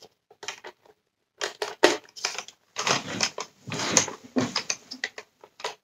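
Irregular plastic clicking and rattling as a screwdriver and the parts of a Dyson Cinetic Big Ball cyclone unit are handled during reassembly. A few sparse clicks come first, then busier clattering from about a second and a half in.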